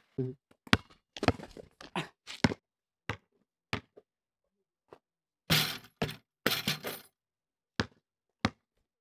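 Basketball bouncing on an asphalt court: a run of sharp, irregular thuds, some in quick clusters, with short silences between.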